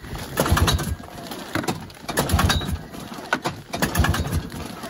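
Vintage two-stroke snowmobile engine being pull-started, the recoil rope yanked several times in a row and the engine turning over in short rough bursts without firing: a cold engine that has sat since last winter.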